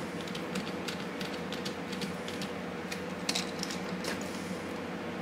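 Scattered small clicks and taps of a hand screwdriver and a plastic-and-wood mini drone frame being handled during assembly, a few coming close together a little past halfway, over a steady low hum.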